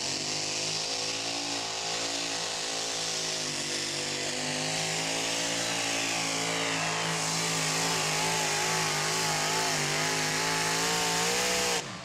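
Two-wheel-drive pulling truck's engine running hard at full throttle while dragging a weight-transfer sled. It holds a steady, slightly wavering note that climbs a little in pitch late on, then cuts off abruptly near the end.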